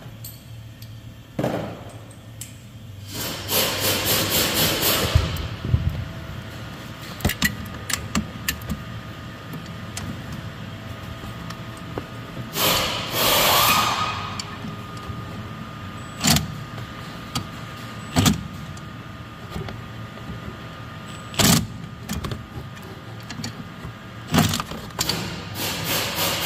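Hand tools working on metal at a Thermo King condenser fan motor mount: two longer runs of rapid clicking and scraping, a few seconds in and about halfway through, and scattered sharp metal knocks and clanks, over a steady low hum.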